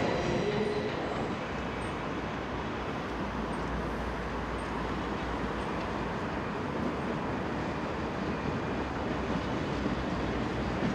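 Steady, distant running noise of an electric locomotive hauling IC 2000 double-deck coaches along the track: an even rumble of wheels on rails.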